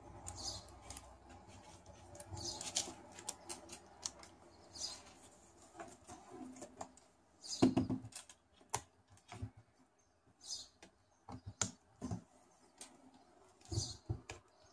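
Small clicks and knocks of a DSLR camera and its lens filter being handled, with one louder knock about halfway through. Short high chirps come every couple of seconds.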